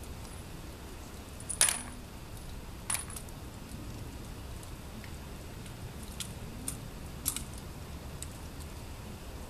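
Several sharp metallic clinks at irregular intervals, the loudest about one and a half seconds in, from guns and cartridges being handled at the firing line.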